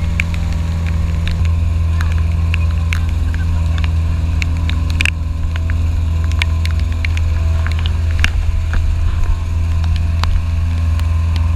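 Outrigger boat's engine running steadily with a constant low drone, with scattered sharp spatters of spray and rain as the boat runs through choppy water.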